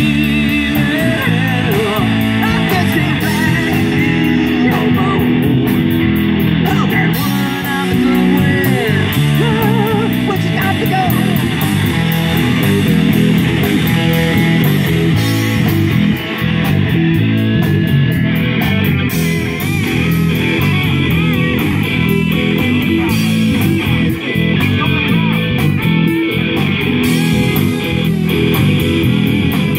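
Live amplified rock band playing a song: electric guitars, bass guitar and a drum kit with cymbals, at a steady loud level.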